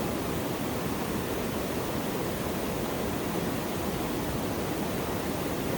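Waterfall rushing steadily, an even wash of falling water with no breaks or changes.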